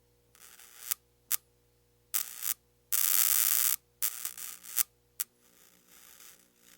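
Short-circuiting electrical wiring arcing in irregular crackling bursts, a few brief snaps and one loud sustained burst of almost a second near the middle, over a faint steady electrical hum.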